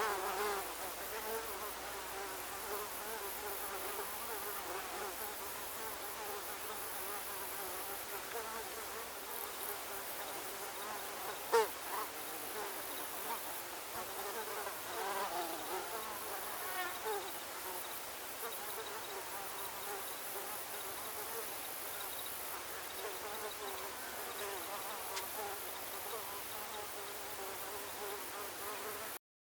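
A swarm of mosquitoes whining, many overlapping high buzzes whose pitches waver up and down as they fly close and away. A single sharp click about twelve seconds in.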